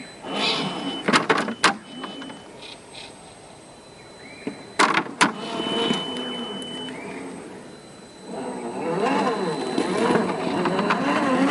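Electric motor and geared drivetrain of a 1/10-scale RC4WD Trail Finder 2 rock crawler whining as the throttle is worked, the pitch rising and falling, with a few sharp knocks of tires and chassis against rock about a second in and again near the middle. The whine grows louder and more continuous from about eight seconds in as the truck climbs.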